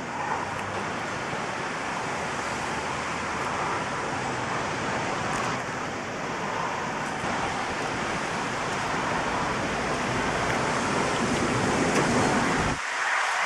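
Steady rushing noise of a thunderstorm's wind and rain, with a few faint ticks. The low rumble drops out suddenly about a second before the end.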